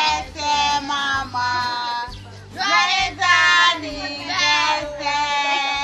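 A child singing, in held phrases with a short break about two seconds in.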